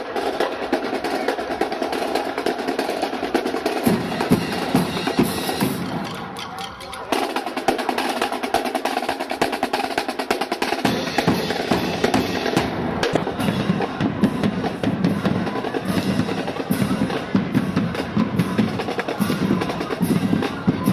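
Marching band drumline playing: rapid snare drum strokes and rolls with bass drums. The deep bass drum hits drop out for a few seconds about a third of the way in, then come back.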